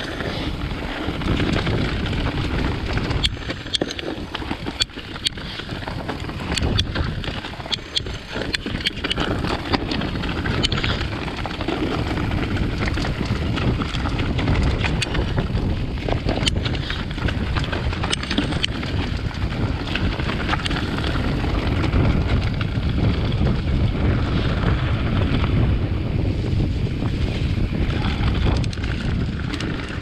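Wind buffeting a chest-mounted GoPro's microphone as a mountain bike rolls down a leaf-covered, rocky trail, with frequent sharp clicks and rattles from the bike over rough ground.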